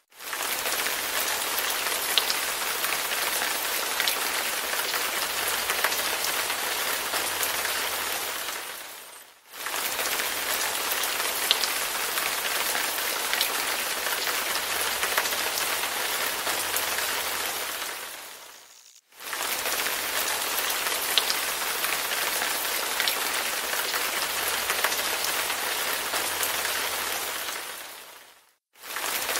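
Steady rain falling on a surface, with scattered sharper drop ticks. It is a short recording looped: it fades out and cuts back in about every nine and a half seconds.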